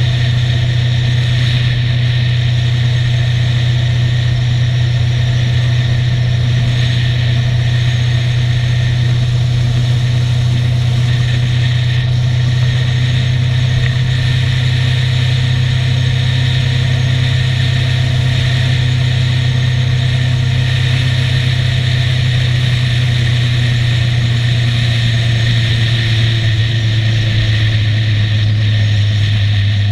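Motorcycle engine running steadily at cruising speed, a constant low drone that dips slightly in pitch near the end.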